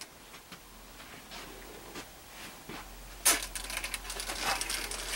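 Handling and movement noise: faint scattered ticks, then a sharp knock about three seconds in followed by a run of rapid crackling clicks, over a low steady hum.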